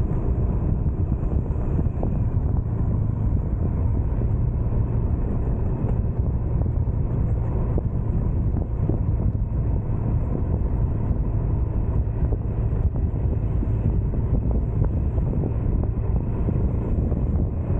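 Motorcycle engine running at a steady cruise, mixed with wind rushing over the microphone.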